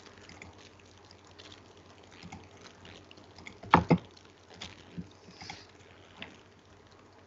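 Computer mouse clicks: two sharp clicks in quick succession about four seconds in, then a few fainter clicks, over a faint steady hiss.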